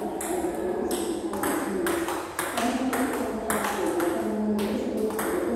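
Table tennis rally: the ball clicking sharply off the bats and the table in a steady back-and-forth, about two hits a second, one of the bats fitted with pimpled rubber.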